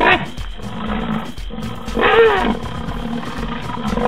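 Wild animal calls: a short falling cry at the start and a longer pitched cry that rises and falls about two seconds in, over a steady background drone.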